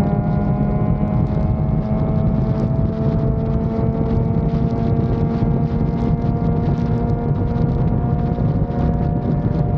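Yamaha FZ6 Fazer 600's inline-four engine running steadily under way, its pitch creeping slowly upward as the bike gains speed, with heavy wind noise on the microphone.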